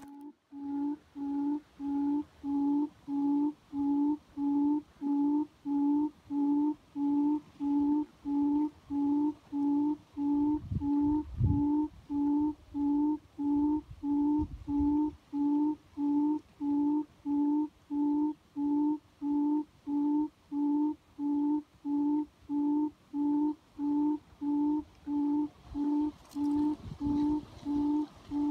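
Frog croaking call repeating steadily, about one and a half short, low, even croaks a second.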